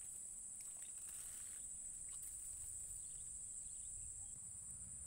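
A steady, high-pitched insect drone from the swamp, one unbroken buzz over a faint low rumble.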